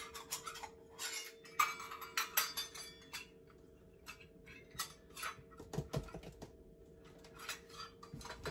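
Metal measuring cups clinking together in a quick run of sharp clicks as they are handled, then sparser taps and scrapes as a cup scoops flour from a glass canister. A faint steady hum sits underneath.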